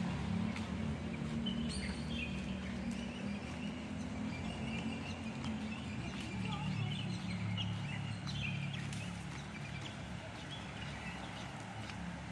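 Street ambience: a steady low traffic rumble, with birds chirping faintly and on and off.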